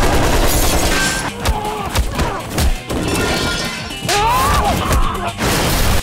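Action-trailer music cut with loud crashes and hits.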